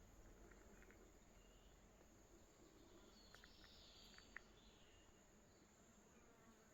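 Near silence: faint native-bush ambience, a steady high insect drone with a few soft ticks and faint chirps.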